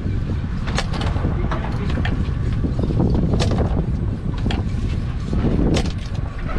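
Steady low rumble of a boat at sea, with wind on the microphone and scattered sharp clicks and knocks.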